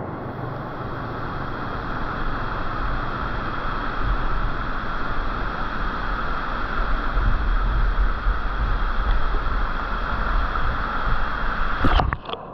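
Steady rush of waterfall water, with low wind rumble on the microphone. A few sharp clicks come near the end.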